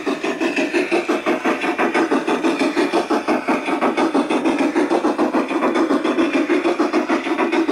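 Sound module of a G-scale model D&RGW C-16 narrow-gauge steam locomotive, playing a steady rapid chuffing exhaust of about five beats a second through the engine's small speaker as the model train runs.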